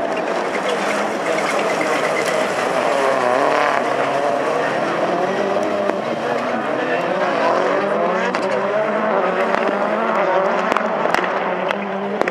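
Rallycross Supercars racing past, their engines revving up and down as they accelerate and shift through the corners, with a few sharp cracks near the end.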